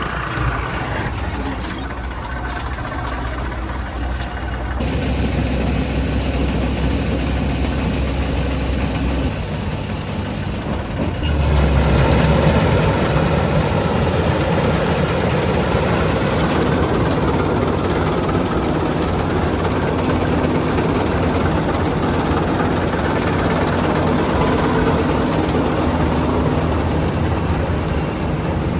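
Diesel engine of heavy farm machinery running steadily. The sound changes abruptly about 5 seconds in and again about 11 seconds in, and is louder after the second change.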